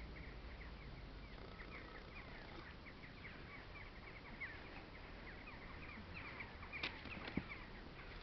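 Small birds chirping and twittering continuously, many short quick falling chirps, faint. A couple of sharp little knocks near the end.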